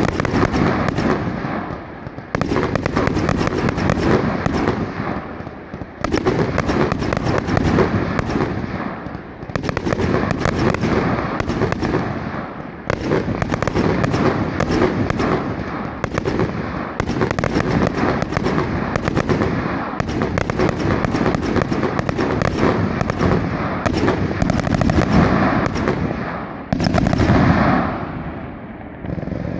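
Aerial fireworks going off in quick succession: a constant run of bangs and crackling, with a fresh loud volley every two to four seconds.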